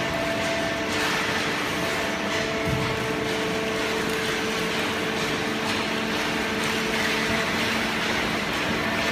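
Automatic hydraulic paper baler running: a steady machine hum with a constant whine over a wash of noise.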